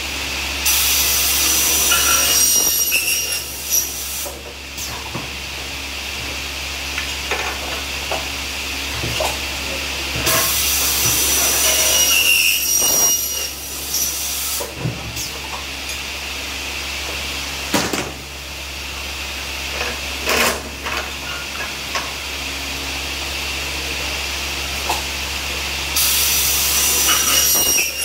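A Ginifon aluminium cutting saw's circular blade cuts through aluminium profile three times: about a second in, about ten seconds in and near the end, each cut a loud high-pitched screech lasting about three seconds. Between cuts the saw's motor hums steadily, and there are short hisses and clacks from its air-operated clamps.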